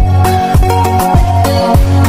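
Afrobeat-style background music with a steady drum beat and a heavy bass line.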